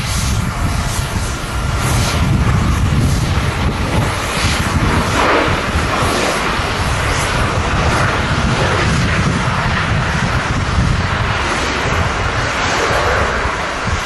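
Jet engines of a Boeing 737-800 airliner rolling along the runway: a steady loud jet noise, with gusty wind rumbling on the microphone.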